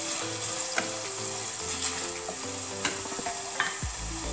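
Chopped vegetables sizzling as they sauté in butter in a stainless steel pan, stirred with a few sharp clicks of the utensil against the pan.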